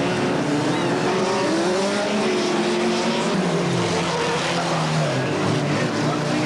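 A pack of BriSCA F2 stock cars racing past, several engines running and revving at once. The pitch rises and falls, with one car's note dropping as it passes about three and a half seconds in.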